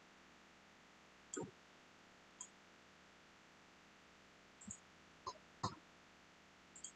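Computer mouse clicking, about six short single clicks scattered irregularly over faint background hiss.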